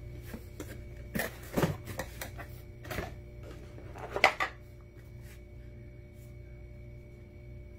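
Cardboard retail box being handled and opened: scrapes, rustles and knocks, with the loudest knocks about four seconds in as the jump starter is lifted out of its tray. A steady low hum and a faint high tone run underneath.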